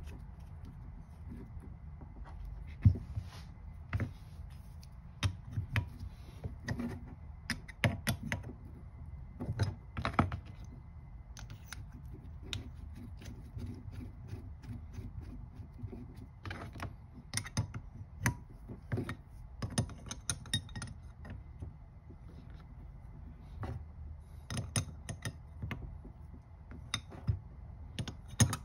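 Small metal clicks and clinks of a Td5 fuel pressure regulator's aluminium body and its steel pipe fittings being handled, threaded together by hand and turned with an open-end spanner. The sharp clicks come scattered and irregular, the loudest about three seconds in, over a steady low hum.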